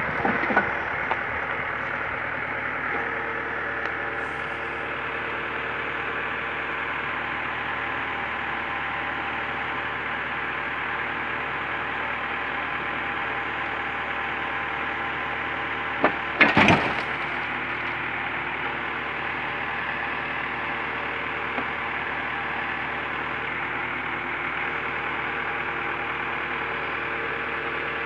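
Iveco crane truck's engine running steadily while the crane works. There are a few knocks right at the start, and a loud crash about 16 seconds in as the crane's grab drops a wheel onto a wrecked car's roof.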